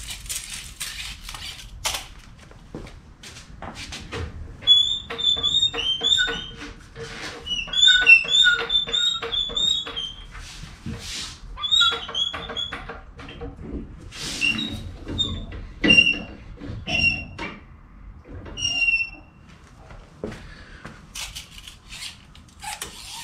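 Hydraulic floor jack being pumped, raising the suspension back to ride height: a quick run of clicks, each with a short squeak, then slower, sparser squeaks and knocks.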